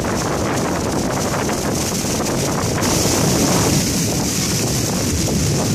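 Heavy tropical monsoon rain pouring down in a steady, loud rush, with wind buffeting the microphone. The hiss of the rain grows brighter about halfway through.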